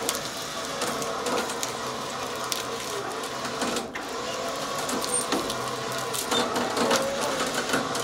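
Winch running steadily under load, dragging a white oak log up onto a trailer deck, with scattered clicks and knocks from the chain and the log's bark scraping over the trailer.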